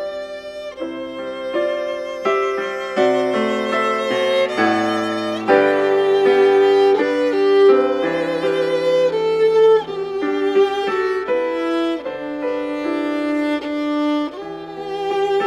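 Violin playing a melody with vibrato on its held notes, accompanied by a digital piano sounding lower notes beneath it.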